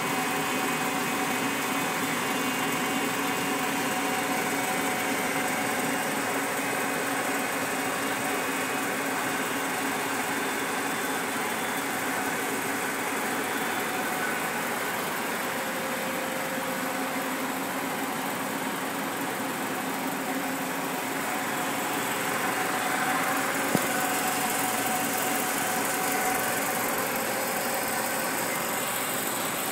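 Steady mechanical hum and whir of 35mm film projection equipment running, with film platters turning and projectors running interlocked on one print. There is one short click about three-quarters of the way through.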